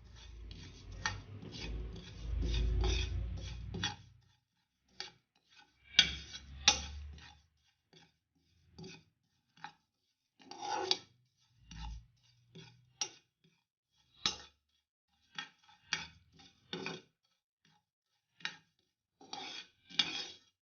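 Cumin and fennel seeds being stirred dry in a frying pan: short, irregular scrapes and rattles of the utensil and seeds against the pan, with a low rumbling for the first four seconds. The seeds are being lightly roasted until fragrant.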